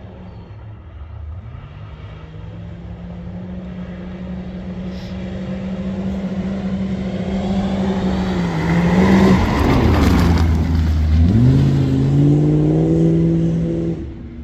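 Competition safari off-road racing car's engine growing steadily louder as it approaches. It is loudest a little over two-thirds of the way in, where the engine note drops and then climbs hard as it accelerates past. The sound stops abruptly near the end.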